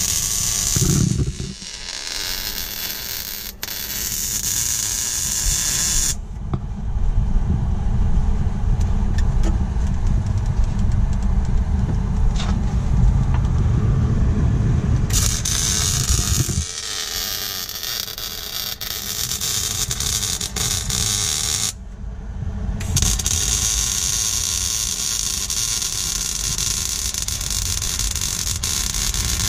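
Electric welding on the car's floor pans: long runs of hissing with short breaks between them, and a low rumble through the middle stretch.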